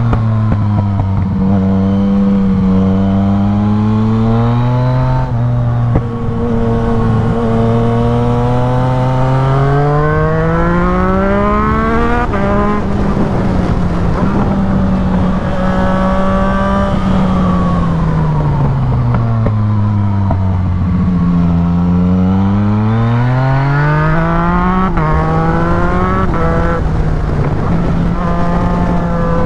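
Yamaha MT-09's three-cylinder engine through a full aftermarket exhaust, pulling hard up through the gears. Quickshifted upshifts drop the pitch suddenly, several times. Midway the revs sink slowly as the bike slows, then climb again with two more quick shifts near the end.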